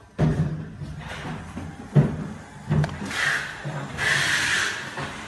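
Plastic and metal parts of a small power tool being handled and fitted together after a carbon brush change: sharp knocks and clicks, the loudest about two seconds in, then two short scraping rasps about three and four seconds in.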